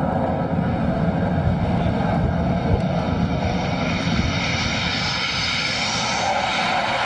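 Sukhoi Su-33 carrier fighter's jet engines on approach, their hiss and whine building steadily louder from about halfway through, over a low rumble of wind on the microphone.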